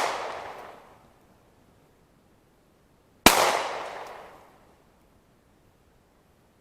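A 9mm Glock 19 pistol fired once, about three seconds in, in slow aimed fire. The sharp crack fades over a second and a half of echo, and the echo of the previous shot dies away in the first second.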